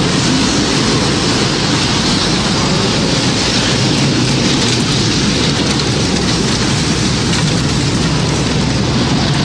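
Tornado storm sound effect: a loud, steady rush of wind and heavy rain, with no siren heard.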